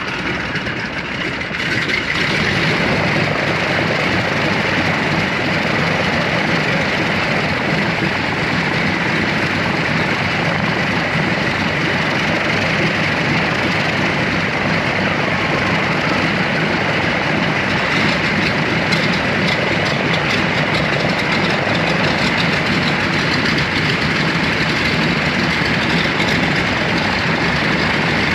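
Ford Trimotor's three radial engines running on the ground, propellers turning. It is a steady, loud engine sound that steps up in level about two seconds in, then holds.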